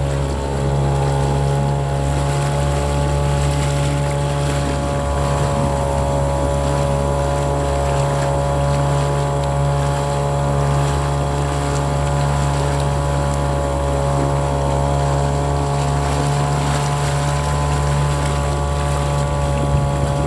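An engine running steadily at a constant speed, a continuous drone that does not change.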